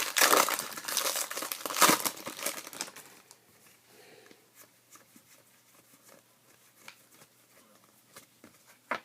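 Baseball card pack wrapper crinkling and tearing as the pack is opened, lasting about three seconds. It is followed by faint ticks of cards being handled and a sharp click near the end.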